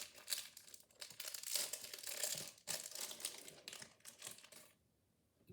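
Plastic wrapping of a squishy toy crinkling and tearing as it is opened by hand; the irregular rustling stops suddenly near the end.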